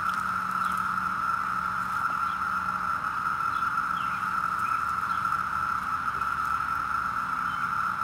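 Dense chorus of 17-year periodical cicadas: a steady, unbroken shrill.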